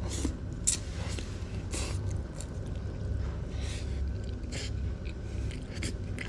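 A person eating stir-fried noodles with chopsticks: short airy slurps, about one a second, between bouts of chewing, over a steady low room hum.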